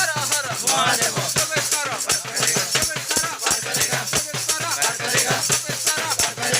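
Music: a song with a singing voice over a fast, steady beat of shaker-like rattles and percussion.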